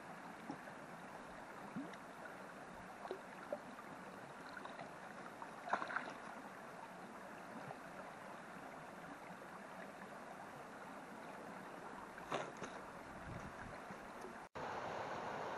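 Shallow moorland stream flowing over rocks, with occasional small splashes as a water bottle is dipped and filled in it. Near the end the sound cuts off for an instant and a louder, steady rush of water follows.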